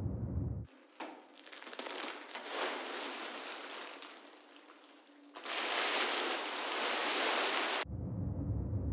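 A crackly, rain-like hiss cuts in abruptly, gets louder about five seconds in, and cuts off just as abruptly, giving way to a low rumble.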